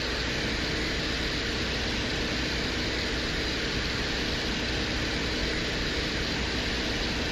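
Venera-14 lander's microphone recording from its descent to Venus's surface: a steady hum with hiss, even in level and unchanging.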